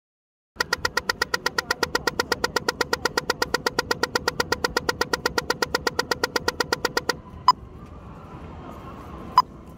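Pedestrian crossing signal ticking fast and evenly, about eight ticks a second, the rapid tick that marks the walk phase. It stops a little after seven seconds and gives way to two single, slower ticks about two seconds apart, over faint traffic noise.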